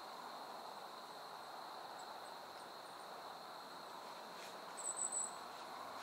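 Evening woodland ambience: a steady, high-pitched cricket drone, with one brief, louder, very high chirp of a few quick pulses about five seconds in.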